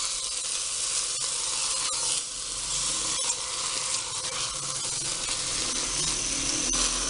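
Chicken, onion and ginger sizzling in a hot glass pot just after a splash of water is added to keep it from drying out, while a spatula stirs the pieces. A few sharp clicks come from the spatula against the glass.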